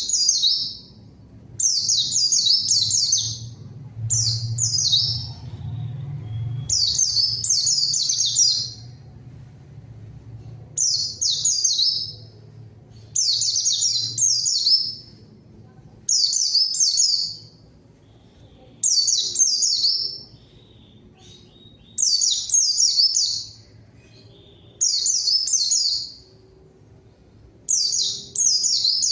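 White-eye (pleci) singing nonstop in a lively, rival-calling manner: short, rapid, high warbled phrases of about a second each, repeated roughly every two seconds.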